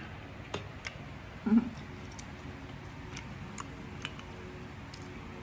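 A person chewing a sesame-salt flatbread with small scattered mouth clicks and smacks, and a short 'mm' hum about one and a half seconds in.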